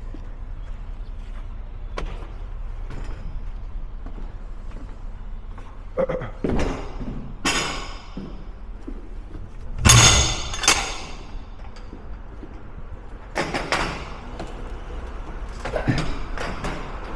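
Empty wooden euro pallets being knocked loose and dropped inside a trailer's box body: a series of wooden thumps and bangs with some scraping, coming in several clusters, the loudest about ten seconds in.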